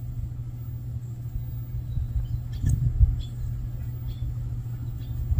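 Steady low outdoor rumble, with a soft knock about three seconds in and a few faint short high chirps after it.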